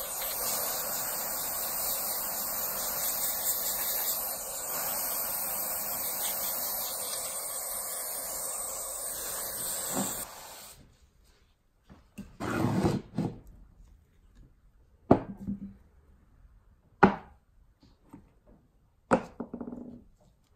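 Aerosol spray hissing steadily through a thin straw nozzle into the cross hole of a screw jack's screw, cutting off suddenly after about ten seconds. After a short quiet, a few separate sharp knocks and clunks of metal parts handled on a wooden bench, louder than the spray.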